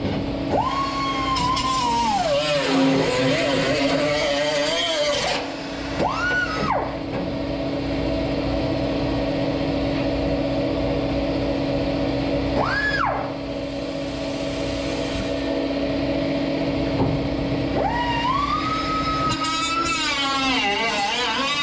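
Angle grinder cutting rusty automotive sheet steel. Its motor whine sinks in pitch as the wheel bites into the metal and climbs again when eased off, several times over, above a steady low hum.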